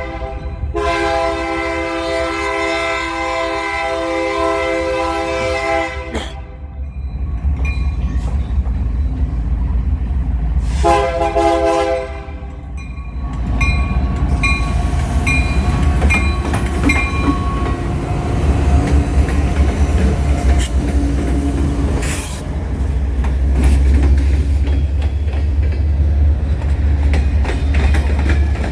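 Union Pacific freight train's locomotive air horn blowing a long blast and then a shorter one, followed by a bell dinging a few times. The train then rolls past with a heavy low rumble and its cars' wheels clattering over the rail joints.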